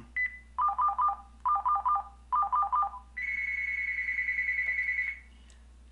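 Phone ringtone: three short bursts of rapid two-pitch electronic beeps, then one long steady high beep that stops about five seconds in.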